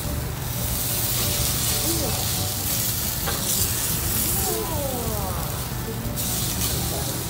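Chicken breast searing in a very hot ridged cast-iron grill pan with little oil, a loud steady sizzle as grill marks burn in. The sizzle falls away about six seconds in, as the breast is lifted off the pan.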